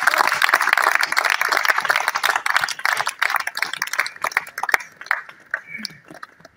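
A group of people clapping their hands, dense and loud at first, then thinning out after about three seconds and dying away near the end.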